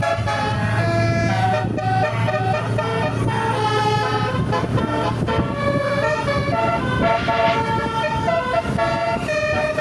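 Bus telolet horn, a set of multi-tone horns, playing a rapid melody: several notes sound together and change pitch in quick steps. A low steady hum runs beneath it for about the first half.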